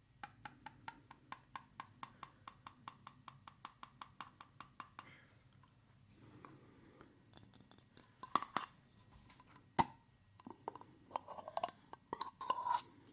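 A rapid run of even, ringing clicks, about eight a second, for around five seconds. After a short pause come several louder, scattered clicks and clinks, like hard objects being handled and set down.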